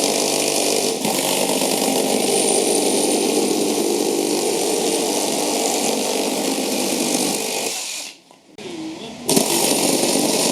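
Cordless reciprocating saws running flat out as they cut, a steady loud buzz. About eight seconds in the sound briefly cuts out and comes back weaker, then the saw runs at full speed again about a second later.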